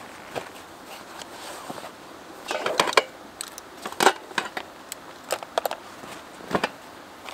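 Fishing gear being handled: a canvas pouch rustling as it is unfolded and its zip pocket opened, with a scattering of short clicks and knocks as a spinning reel and a small tackle box are taken out. A steady hiss runs underneath.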